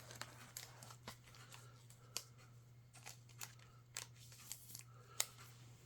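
Faint clicks and rustles of trading cards being handled and turned over, with a few sharper clicks about two seconds in and again near the end, over a steady low hum.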